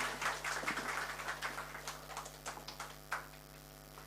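Scattered hand-clapping from a small audience after a speech, dense at first, then thinning and dying away after about three seconds, over a steady electrical hum.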